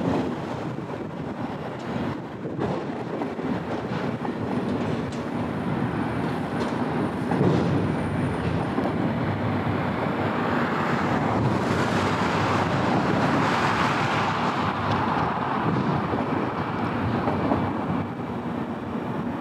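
Freight train cars rolling past on the rails: a steady rumble and rattle of enclosed autorack cars, then empty flatcars, on their wheels. The noise swells louder and hissier for a few seconds past the middle.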